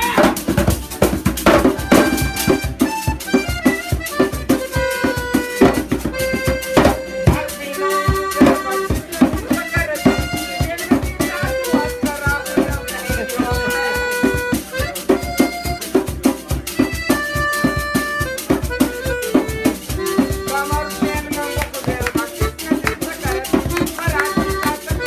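Piano accordion playing a lively tune in held chords and melody, over fast, steady percussion.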